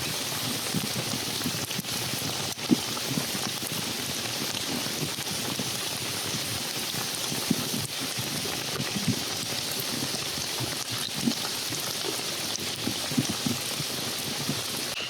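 Steady rain patter, with scattered louder drops.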